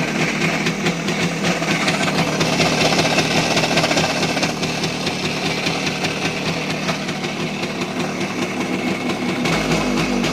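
Voskhod 3M motorcycle's single-cylinder two-stroke engine running with a knock in it, which the owner suspects comes from the connecting rod and gudgeon pin or a failing crankshaft.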